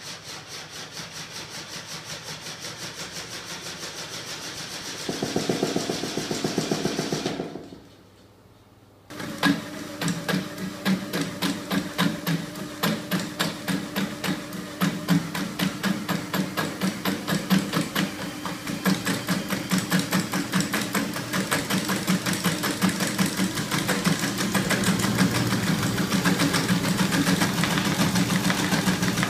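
Homemade electric-motor-driven magnet engine prototype running: its rocking arm, crank linkage and flywheel clatter and knock in a rapid, regular rhythm. The sound drops out briefly about a third of the way in, then resumes louder and heavier.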